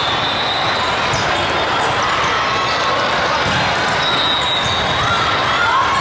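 Echoing din of a large hall full of volleyball games: balls struck and bouncing and players moving on the courts, with voices calling out near the end.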